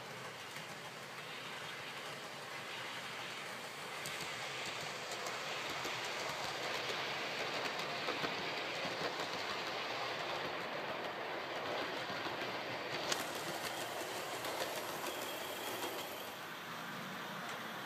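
Model train running on OO gauge track, its wheels rolling and clicking over the rail joints. It grows louder over the first few seconds and is loudest through the middle as the model HST passes close by.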